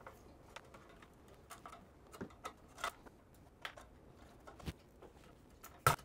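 Faint, scattered clicks and taps of a screwdriver and small metal parts being worked on a bare sheet-metal drive cage, the sharpest click near the end.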